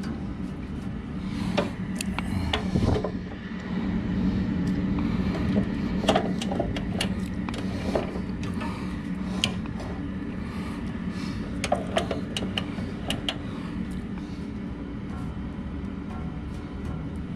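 Scattered light clicks and taps on a Laguna 14-Twelve band saw over a steady low hum, as the tension of its 3/8-inch blade is set and checked by ear. The owner is not sure the blade sounds right, though the tension gauge reads correct.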